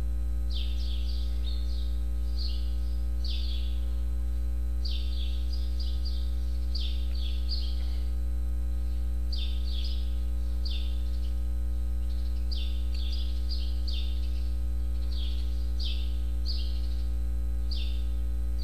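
Steady electrical mains hum, with a small bird chirping over it in quick little runs of short high notes.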